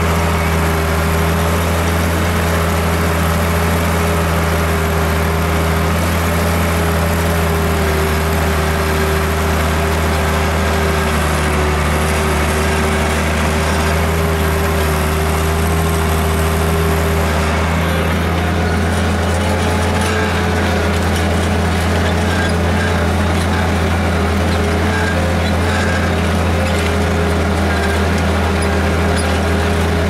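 Farm tractor engine running steadily under load, pulling a tillage implement through the soil, with a constant low drone and a steady whine.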